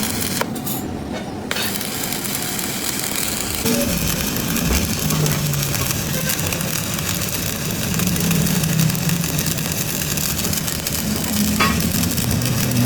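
Continuous crackling, hissing workshop noise over a low hum that shifts in pitch now and then.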